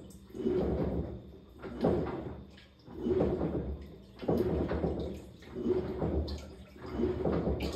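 Samsung top-load washing machine agitating its load during a quick wash cycle: water sloshing in regular surges a little over a second apart, over a low steady motor hum.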